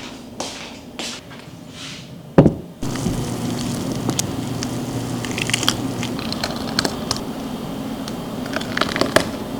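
Kitchen handling sounds: a few soft swishes and a single sharp knock, then light clicks and clatter over a steady low hum.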